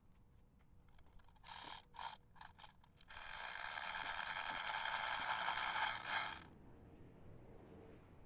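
A hand-worked metal ratchet on the lifting chain, clicking: a few short bursts, then a steady fast run for about three seconds that stops suddenly.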